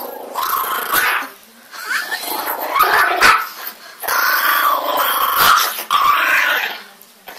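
Small dog growling in long, rough stretches with brief pauses while eating from its plate: a food-guarding growl.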